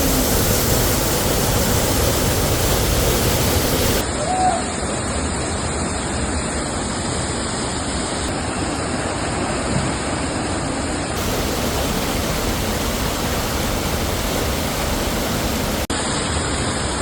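Waterfall's steady rush of falling water, with abrupt changes in its tone about four, eleven and sixteen seconds in.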